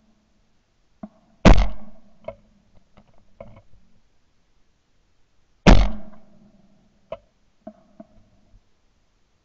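Two shotgun shots about four seconds apart, fired at a duck flying overhead; the duck flies on after the first, and after the second it is hit in a puff of feathers. Fainter short knocks and clicks come between and after the shots.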